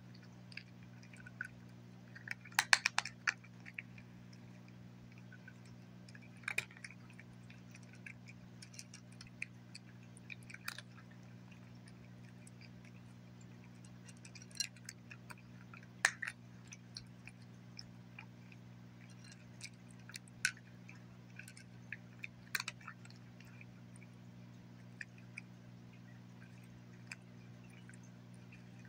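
Cat chewing dry kibble: scattered sharp crunches, loudest in a quick cluster about three seconds in, thinning out near the end. A faint steady low hum runs underneath.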